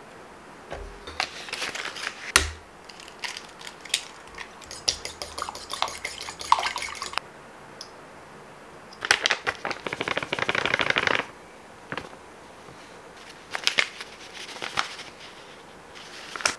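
Baking prep handling sounds: a knife cutting a block of butter, and scattered clicks and taps of utensils against bowls and a scale. There is a run of rapid even ticks around five to seven seconds in, and a denser two-second stretch of scraping about nine seconds in.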